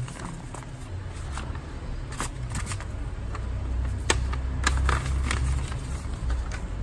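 A mailed package being unpacked by hand: packaging rustling and crinkling, with scattered small clicks and taps over a low rumble.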